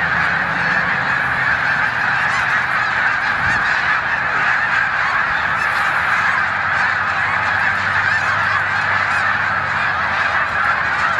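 A huge flock of snow geese calling together, a continuous wall of overlapping honks with no single call standing out, at a steady level throughout.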